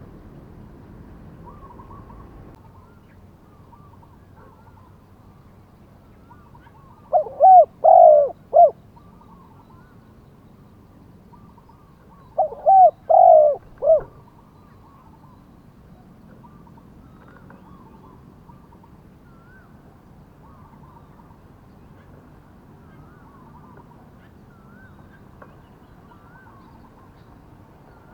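Spotted dove cooing: two phrases of three or four short coos, about five seconds apart, from a caged decoy bird calling to lure wild doves. Faint chirps of small birds go on throughout.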